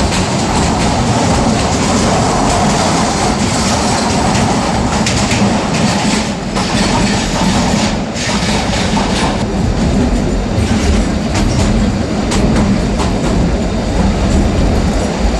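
Narrow-gauge toy train running along its track: a steady rumble with the wheels clattering and clicking on the rails.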